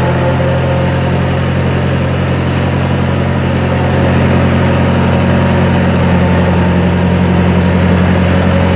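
Tractor engine running steadily with a low, even drone, getting a little louder about halfway through.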